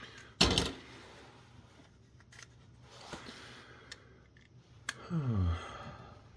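Plastic camera parts and a small screwdriver being handled during a teardown: scattered clicks and light clatter, the loudest a sharp knock about half a second in, with a short sound falling in pitch near the end.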